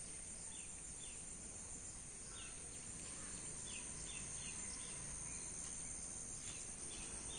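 Quiet garden ambience: a steady high-pitched insect drone throughout, with short, quick falling bird chirps scattered through it.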